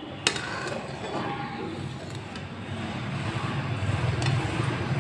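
Jaggery syrup boiling in an aluminium kadhai, cooking toward a one-thread syrup, with a low steady rumble that grows toward the end. A steel ladle gives a single sharp clink against the pan just after the start.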